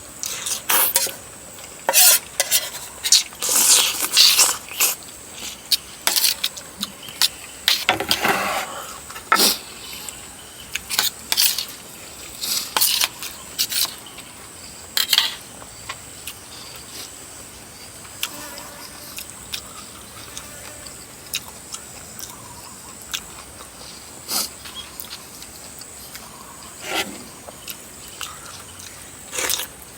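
Kitchen utensils clinking, knocking and scraping against pots and dishes in irregular strokes, as food is handled and stirred.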